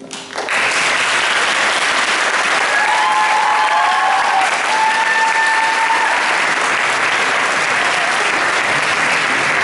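Audience applauding, starting as the last piano notes die away and rising within half a second to steady, loud clapping. A few cheers ring out over it.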